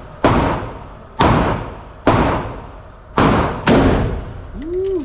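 AR-style rifle fired six times in an indoor range. Each shot is a sharp crack with a long echoing tail. The shots come roughly a second apart, the last three closer together.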